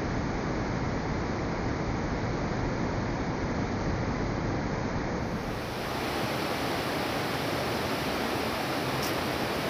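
Steady rush of fast-flowing water in a concrete irrigation channel. The rush loses its low rumble and turns brighter about six seconds in.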